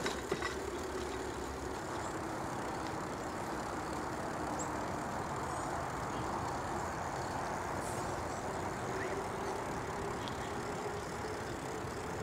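Steady rolling noise of bicycles ridden along a paved trail: tyres and rushing air, with a faint steady hum underneath and a few light clicks at the start.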